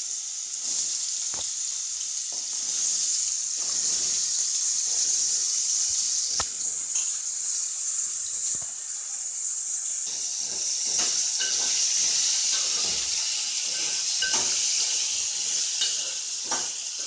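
Diced potatoes sizzling in hot oil with cumin seeds in a metal pan, a steady hiss. A metal spoon scrapes and clicks against the pan as they are stirred, more often in the second half.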